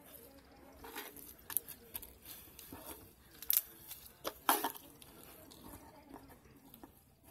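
Foam bead slime being squished and gathered up by hand, giving soft sticky crackles and scattered clicks, the loudest about three and a half and four and a half seconds in.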